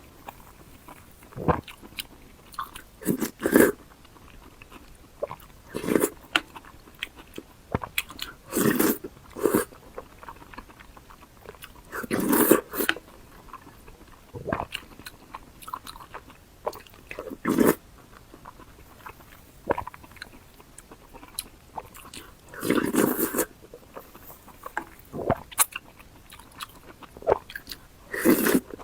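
Close-miked eating sounds: loud bites and crunchy chewing that come in short bursts every one to three seconds.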